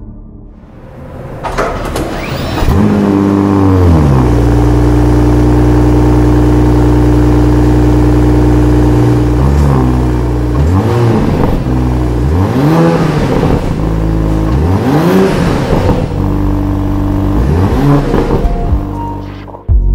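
2023 BMW M750e's 3.0-litre inline-six starting about a second and a half in, flaring up and then settling to a steady idle. From about halfway it is revved several times, each rev rising and falling back to idle.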